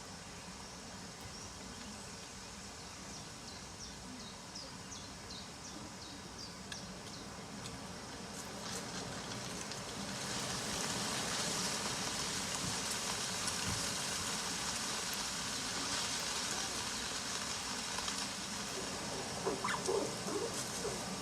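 Small birds chirping in short, high calls, then a steady rushing noise swells up about halfway through and stays loud, with a few lower calls near the end.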